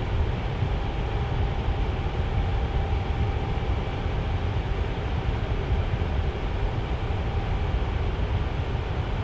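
Tower fan running steadily: an even rushing of air with a low rumble and a faint steady hum from the motor.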